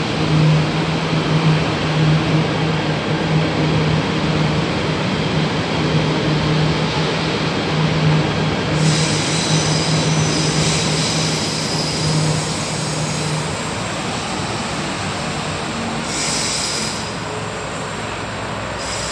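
KTM ETS electric train running past the platform. A steady low hum with wheel and rail noise fades out about two-thirds of the way through as the last cars go by. High-pitched tones join in about halfway.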